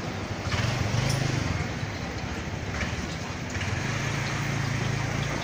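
Street traffic with motorbike and car engines passing close by, swelling about half a second in and again near the end.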